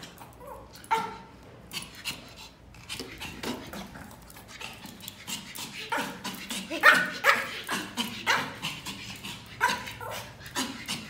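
Small Pomeranian (lulu spitz) barking in a string of short, sharp barks, sparse at first and coming close together about six to eight seconds in.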